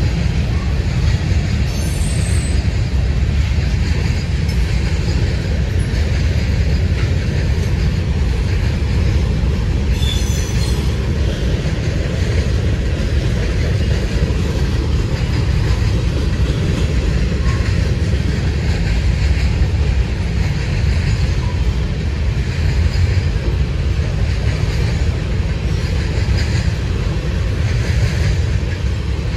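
Freight train's cars rolling past in a loud, steady low rumble on the rails, with brief high wheel squeals about two and ten seconds in.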